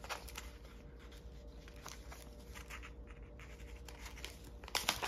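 Faint rustling and light scratching of a sheer organza pouch and its paper tag being handled and pulled loose, with a short burst of louder crinkling near the end.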